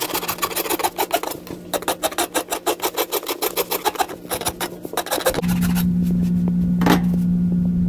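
Four-in-hand rasp scraping a wooden axe handle in quick, even back-and-forth strokes, tapering the handle's shoulder so the axe head can seat lower. About five seconds in the strokes stop and a steady low hum takes over, with a single sharp knock shortly after.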